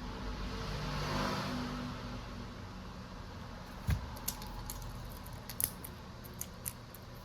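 A soft rushing swell over the first two seconds, then about half a dozen small, sharp clicks and taps, irregularly spaced, from about four seconds in.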